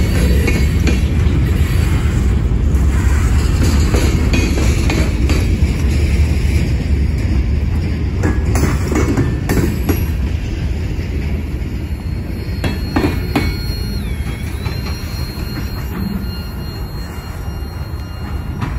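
Freight train of covered hopper cars rolling past at close range: a steady rumble of steel wheels on rail with scattered clanks and knocks. A thin high wheel squeal comes in after the middle. The rumble eases off near the end as the last car goes by.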